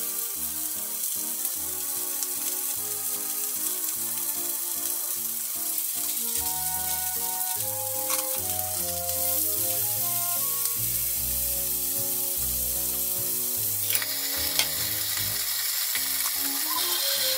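Chicken thighs sizzling steadily in an oiled frying pan, the sizzle louder from about fourteen seconds in, under soft background music.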